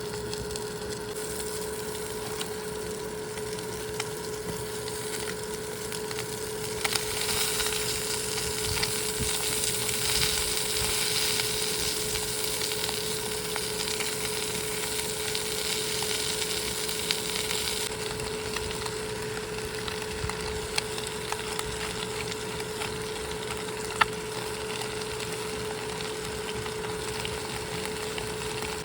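Food frying in a hot pan: a sizzle that starts suddenly about a quarter of the way in, stays loud for about ten seconds, then dies down to a fainter crackle with occasional sharp pops.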